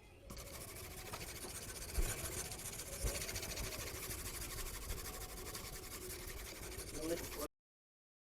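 Steel knife blade scraping on a diamond sharpening stone, a continuous gritty rasp with a couple of light knocks. It cuts off abruptly near the end.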